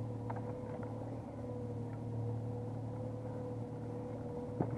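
Boat motor running steadily while trolling: a low, even hum with a steady higher tone over it. A single sharp click comes near the end.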